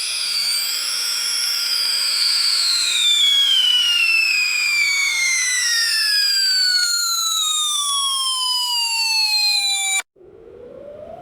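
A high whistling tone with overtones, gliding slowly down in pitch for about ten seconds and then cutting off abruptly. Just after, a new tone starts low and rises in pitch near the end.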